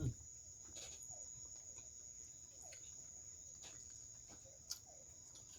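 Crickets chirping in a steady high trill, with faint clicks and mouth smacks of someone chewing food.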